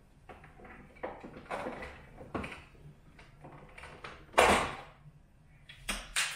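Plastic interior parts of a refrigerator being worked loose and pulled out: irregular scrapes, knocks and clacks, with a loud half-second clatter about four and a half seconds in and sharp clicks near the end.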